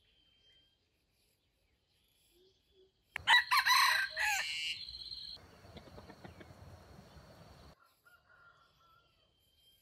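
Red junglefowl rooster crowing once, a single loud crow of about two seconds starting about three seconds in. A fainter noise follows it and cuts off suddenly near the end.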